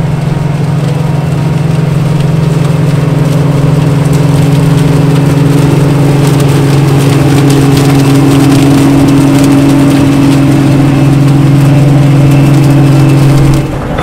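OXBO 9630 sweet corn harvester running in the crop: a loud, steady diesel engine drone with a crackle over it from the stalks being taken in and crushed. It cuts off suddenly near the end.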